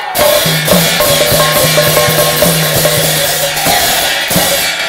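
Instrumental music: fast drumming with ringing cymbals over a held low note.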